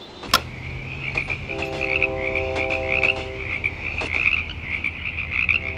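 Frogs croaking in a chorus: a dense, steady high trill, joined by a lower, pitched croak for about two seconds from a second and a half in. A sharp click sounds just after the start.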